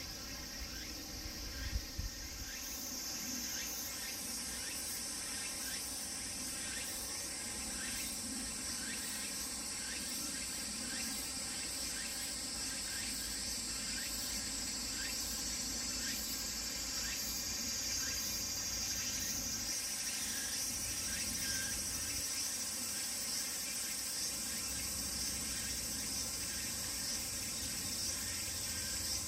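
Cicadas shrilling in chorus: a steady high drone with a faint pulse repeating about once a second. A brief low thump comes about two seconds in.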